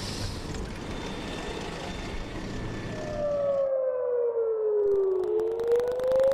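Air-raid warning siren wailing: the rocket alert for an incoming missile. Its pitch falls slowly, then rises again. A steady rushing noise comes before it, and the siren comes in about three seconds in.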